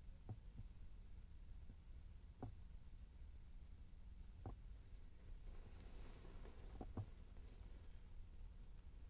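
Crickets chirping faintly in a steady, evenly pulsing high trill, over a low hum with a few soft knocks.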